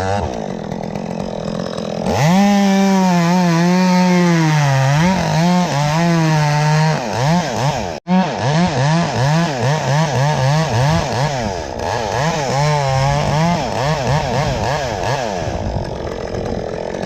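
Two-stroke chainsaw revving up about two seconds in and cutting wood at high speed, its pitch sagging and wavering again and again as the chain loads in the cut. The sound breaks off for an instant about eight seconds in.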